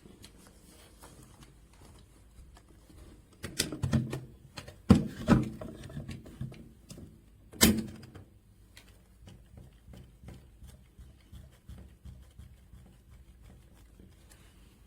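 A few short knocks and thumps of things being handled, the loudest about five seconds in and a sharp one near eight seconds, followed by faint ticks.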